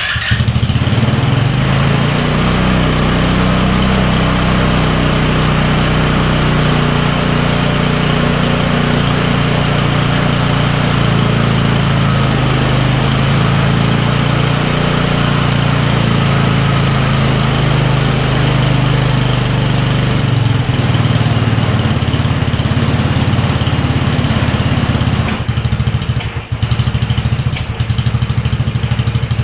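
Single-cylinder GY6 150cc four-stroke scooter engine on a go-kart running steadily at idle on a freshly rebuilt carburetor. Near the end it runs unevenly, its level dipping briefly.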